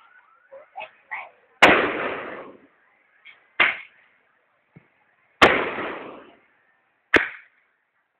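Fireworks going off: two loud bangs, each dying away over about a second, with a scattering of smaller sharp pops between them.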